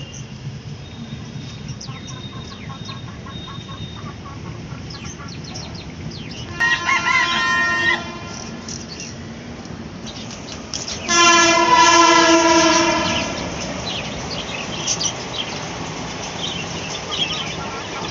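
Country chickens: a rooster crows twice, a shorter crow about seven seconds in and a louder one of about two seconds at eleven seconds. Short chirps and clucks come between and after.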